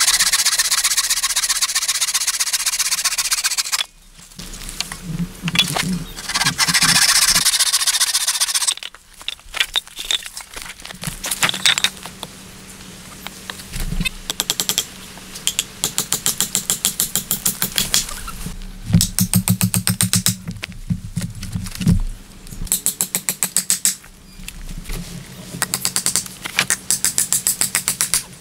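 A bow saw cutting through wooden poles in fast back-and-forth strokes, pausing briefly about four seconds in. From about ten seconds on, a hatchet chops into a standing tree trunk in repeated runs of quick blows.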